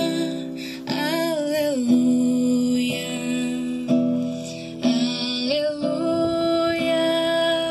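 Live Portuguese worship song: a woman singing long held notes into a microphone over an acoustic guitar, with a few gliding phrases.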